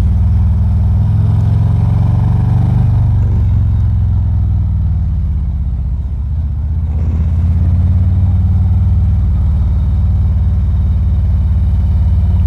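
A 2019 Harley-Davidson Ultra Limited's V-twin engine running at road speed, mixed with wind and road noise, as picked up by a lapel mic inside a full-face helmet. About six seconds in the engine note eases off briefly, then picks up again.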